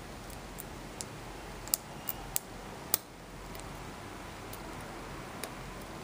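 Lock pick working the pins of an ASSA pin-tumbler cylinder under a tension wrench: scattered small metallic clicks, with a quick cluster of sharper ones between about one and three seconds in.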